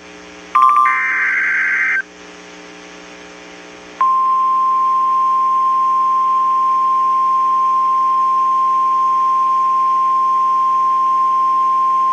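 Emergency Alert System activation on NOAA Weather Radio. The last SAME header data burst, a harsh warbling of digital tones, ends about two seconds in. About four seconds in, the steady single-pitch 1050 Hz warning alarm tone begins, announcing that a warning message follows. A constant low hum lies under both.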